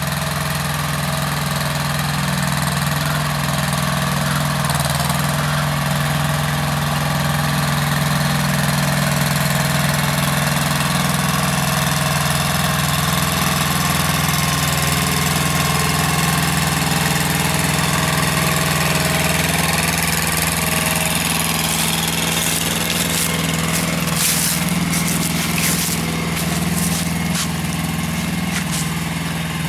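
Kubota B1400's three-cylinder diesel engine running steadily as the small tractor drags its implement through loose dirt. Scattered clicks and rattles join in during the second half.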